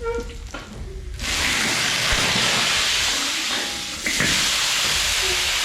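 Pork ribs sizzling loudly in hot oil in a wok. The sizzle starts abruptly about a second in, eases briefly and surges again near four seconds.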